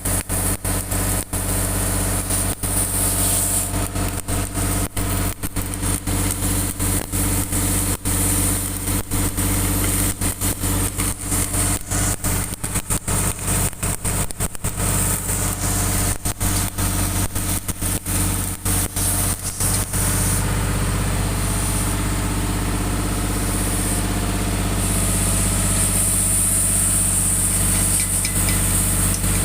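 Komatsu D85ESS bulldozer's diesel engine running steadily, the sound dropping out briefly many times during the first twenty seconds.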